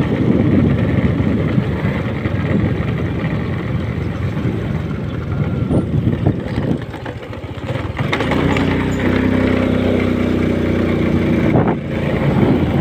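Motorcycle running at road speed, with wind buffeting the microphone. After about eight seconds the engine's steady hum comes through more plainly under the rush.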